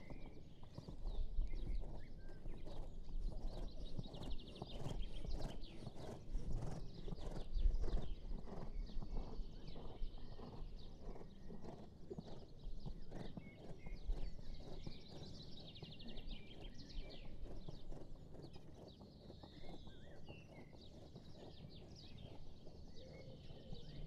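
Hoofbeats of a dressage horse moving on sand arena footing in a steady, regular rhythm, growing fainter near the end. Birds chirp in the background.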